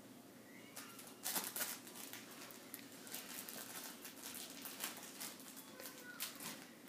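Two Yorkshire terrier puppies tugging and tussling over a stuffed toy on carpet: faint, irregular scuffling and rustling, loudest about a second and a half in, with a brief faint squeak near the end.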